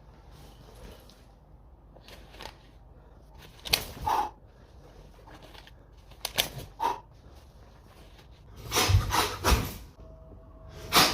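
A person exercising: short bursts of breath and movement noise a few seconds apart, the loudest cluster near the end.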